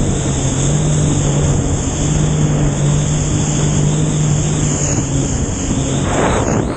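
Jet ski (personal watercraft) engine running at a steady pitch, with a constant hiss of wind and water. A brief rush of noise comes near the end.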